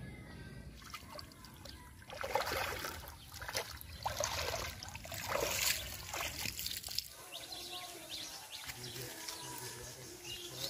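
Water splashing and sloshing as a person wades through a pond, in a run of irregular splashes from about two to seven seconds in.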